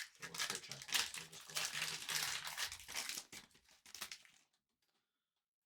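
Plastic trading-card pack wrapper crinkling and tearing as a pack is ripped open, stopping about four and a half seconds in.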